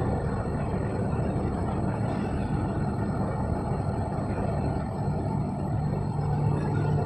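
Steady low rumbling hall noise with a constant hum underneath, unchanging throughout, with no distinct events.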